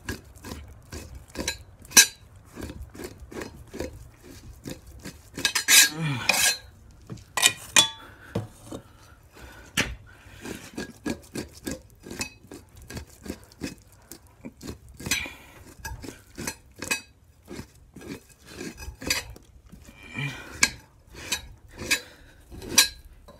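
Two-handled fleshing knife scraping fat from a beaver hide on a fleshing beam: a run of short, irregular scraping strokes with sharp clicks from the blade, and a longer scrape about six seconds in.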